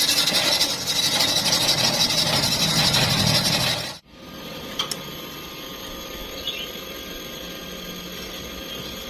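Loud harsh hissing and crackling of metalwork for about four seconds, cutting off abruptly. A quieter steady machine hum follows.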